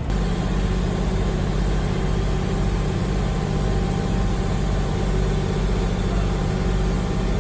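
A vehicle's engine running steadily, a continuous low rumble with a thin, steady high whine above it.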